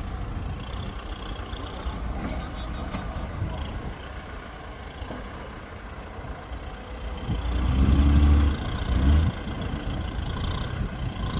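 Heavy vehicle engines running steadily in the mud, with one engine growing louder for about a second and a half near eight seconds in.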